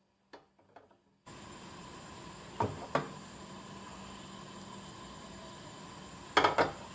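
An enamel saucepan knocking against the cast-iron ring on a portable gas stove: a few faint clinks, two sharp knocks close together a couple of seconds in, and a quick run of clattering knocks near the end. A steady hiss starts about a second in and runs under them.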